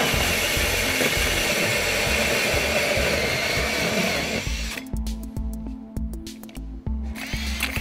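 Power drill with a 6-inch hole saw cutting through gypsum wallboard, a steady grinding whine that stops about four and a half seconds in. Then background music with a steady beat.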